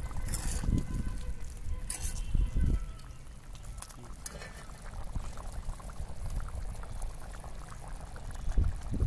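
Chicken gravy bubbling in an iron kadai over a wood fire, with a metal ladle stirring and scraping the pan twice in the first two seconds. A low rumble runs underneath.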